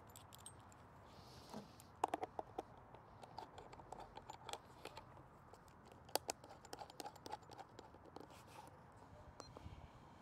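Faint, irregular clicks of buttons being pressed on a handheld RigExpert Stick Pro antenna analyzer, starting about two seconds in, as an SWR sweep of a loaded vertical antenna is set up and run.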